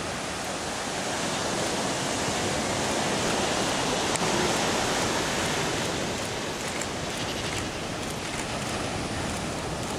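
Ocean surf washing onto a shingle beach: a steady rush that swells a little around the middle.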